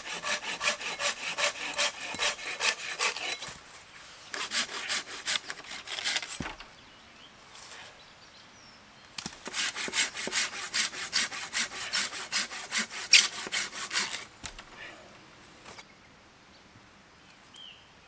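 Hand saw cutting through a dead tree branch in rapid back-and-forth strokes. The strokes come in three runs separated by short pauses, and they stop about 14 seconds in.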